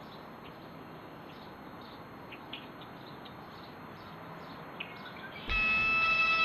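Outdoor ambience with scattered bird chirps over a steady hiss. About five and a half seconds in, music cuts in suddenly with a sustained electric guitar chord.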